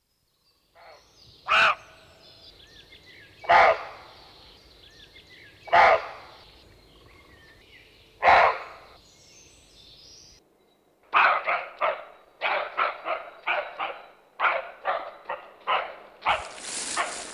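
An animal calling: four single loud calls about two seconds apart, then after a short pause a fast run of about a dozen shorter calls, with faint bird chirps behind. A steady hiss comes in about a second before the end.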